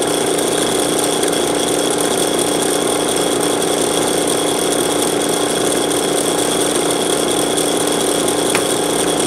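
A power tool's motor running steadily: a constant hum with a high whine, kept running to cool a hot copper pipe.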